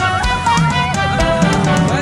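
Background music: a song with a sung melody over drums and guitar, with a steady beat.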